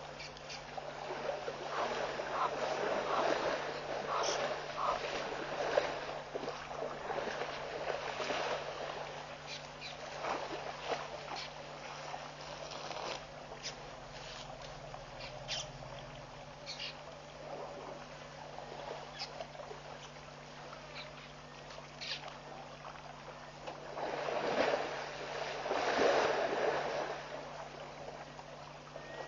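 African elephants wading and drinking in a shallow waterhole, water splashing and sloshing in uneven bursts, loudest a couple of seconds in and again near the end. A few short high clicks sound here and there over a steady low hum.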